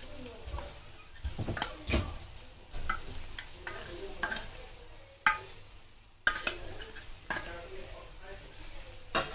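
A metal fork scraping and tapping against the inside of an opened tin can as canned tuna is knocked out into a pan, with irregular clinks and a few sharper knocks. A light sizzle runs from the pan underneath.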